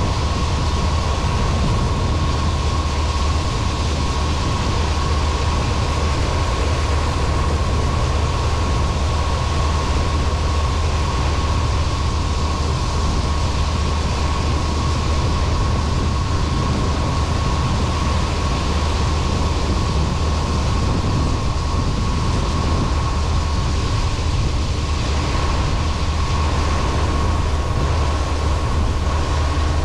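John Deere 9500 combine's six-cylinder turbocharged diesel and machinery running steadily while harvesting corn: a constant low drone with a thin, steady high whine over it.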